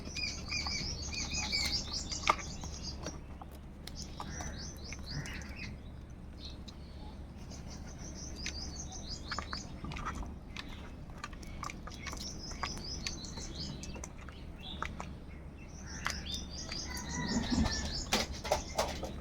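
Birds chirping in quick high-pitched runs that come in bursts every few seconds, with scattered sharp clicks and taps between them and a louder thump near the end.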